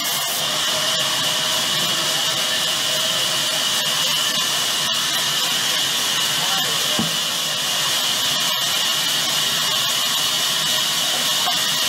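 Sawmill band saw cutting through a large log: a steady, loud hiss of the blade running through the wood.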